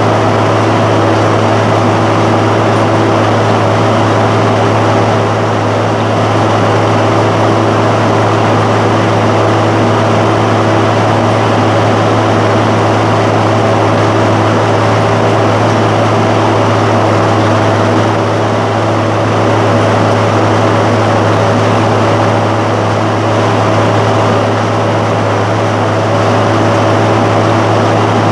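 John Deere 7515 tractor's diesel engine running steadily at an even speed, with a strong low hum and no change in pitch.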